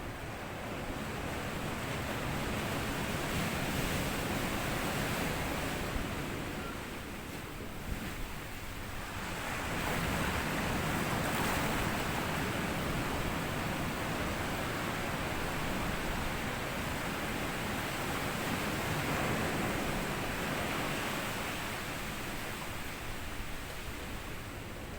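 Small sea waves washing up a sandy beach and drawing back, the surf swelling and easing in slow surges about every eight seconds, with a light rustle of dry leaves in the wash.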